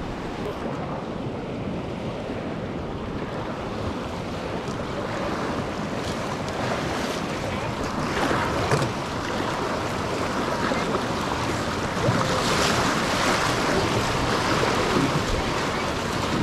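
Rushing whitewater of a river rapid heard from a canoe running it, with wind buffeting the microphone. The rush swells a little about eight seconds in and again around twelve seconds.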